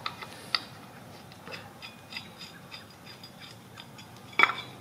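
Light metallic clicks and clinks as the water pump pulley of a 2.4 MultiAir engine is worked by hand off its hub, with a louder clatter of clinks near the end as it comes free.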